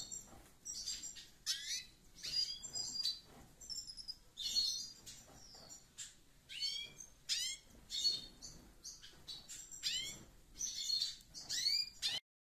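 Cage birds chirping and calling: repeated short, high calls that sweep quickly downward, mixed with quick twitters, cutting off suddenly near the end.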